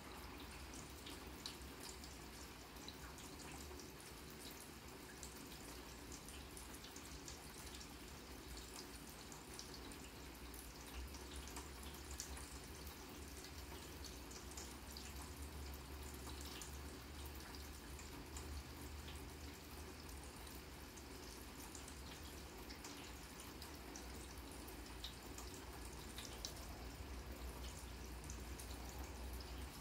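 Steady light rain falling on a grass lawn, a soft hiss with scattered drops ticking, over a low steady rumble.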